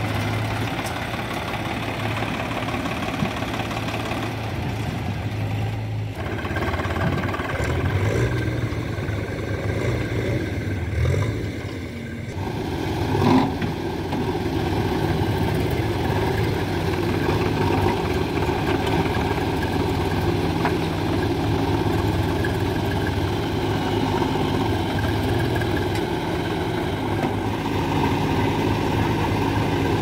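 Diesel engines running steadily: first a Swaraj 735 FE tractor, then a JCB 3DX backhoe loader and tractor working together at a loading site. A brief loud knock comes a little before the middle.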